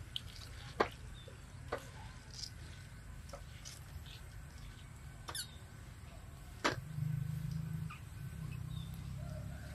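Faint sound of a gloved hand mixing soaked glutinous rice in a steel bowl, with a few scattered light clicks over a steady low rumble. The rumble swells louder for about a second near the end.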